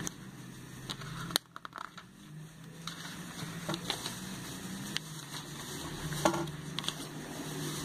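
Glossy pages of a printed catalogue being handled and turned: paper rustling with small ticks and taps, and a sharp click about a second and a half in, over a steady low hum.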